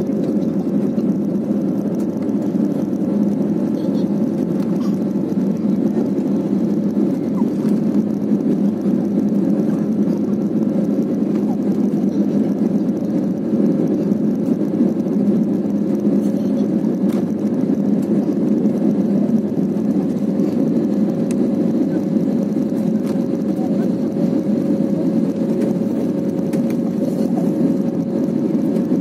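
Steady cabin noise of a jet airliner climbing after takeoff: the engines at climb power and the rush of air over the fuselage, heard from a window seat, with a faint steady hum running under it.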